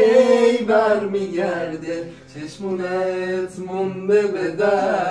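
Male voices singing a slow tune together, with long held notes in phrases broken by short pauses.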